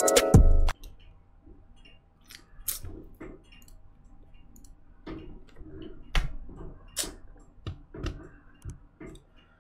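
Music stops abruptly under a second in. Scattered sharp clicks and light knocks follow, irregular and a second or so apart, from small objects being handled close to the microphone.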